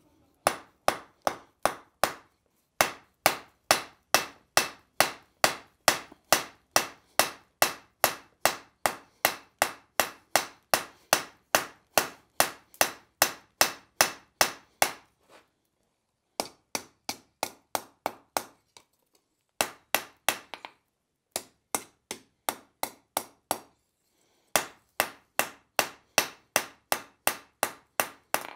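Blacksmith's hand hammer striking a red-hot steel bar on an anvil at about three blows a second, in long runs broken by a few short pauses. The steel is being drawn out thinner and flared wider to form a stand leg.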